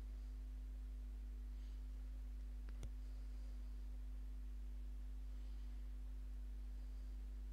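Steady low electrical hum with a fainter steady tone above it, and a single click about three seconds in.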